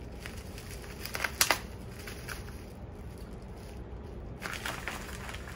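Pink plastic bubble wrap crinkling and rustling as it is peeled off a small object by hand, with a couple of sharp crackles about a second and a half in.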